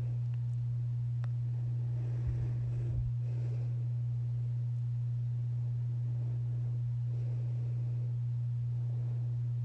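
Steady low hum on a single unchanging pitch, with a few soft thumps about two to three seconds in.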